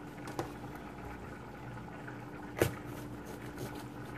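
Quiet kitchen background with a steady low hum and faint hiss. About two and a half seconds in there is one sharp knock as a kitchen knife is handled on the countertop to cut the top off a green bell pepper.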